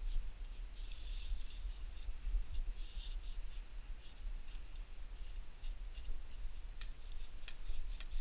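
Handling of a telescopic landing-net pole: rubbing and scraping about one and three seconds in, then a few sharp clicks near the end, over a steady low rumble.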